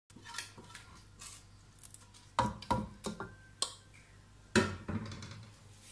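Wooden spatula clattering against aluminium cooking pots as chana dal is scraped onto layered rice: a handful of sharp knocks, the loudest about two and a half and four and a half seconds in, over a faint steady hum.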